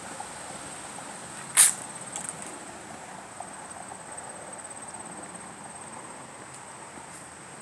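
Insects trilling steadily at a high pitch in the trailside vegetation, over a soft outdoor hiss, with a single sharp click about a second and a half in.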